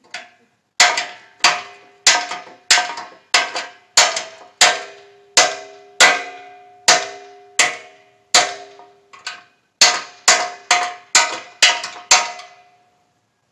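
Hammer beating on a steel hay ring: about twenty ringing metal-on-metal blows, steady at first and coming quicker near the end.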